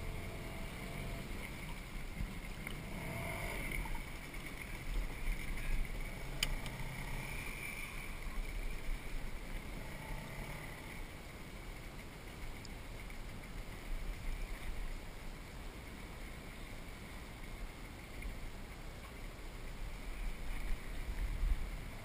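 Outboard motor of a small fishing boat running steadily nearby, with a single sharp click about six seconds in.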